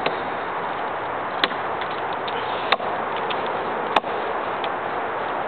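Three sharp knocks of an axe striking wood, about a second and a half apart, over a steady hiss.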